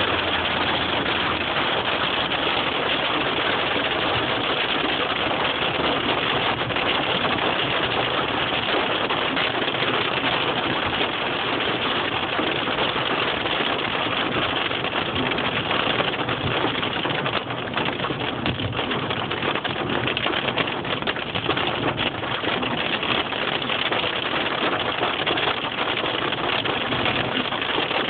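Hail storm: hailstones and rain pelting down hard and without a break, a dense, steady clatter of countless small impacts.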